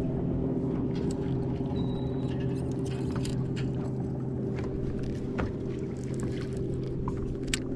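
Boat motor running steadily, with a constant hum and light clicks and taps scattered over it.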